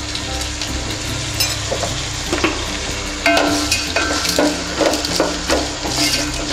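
Onions, tomatoes and green chillies sizzling in oil in a stainless steel pan while a wooden spatula stirs them, scraping and knocking against the pan. The knocks come thick and fast from about three seconds in.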